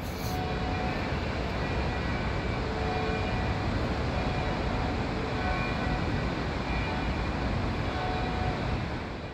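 Train passing: a steady rumble with faint high squealing tones coming and going.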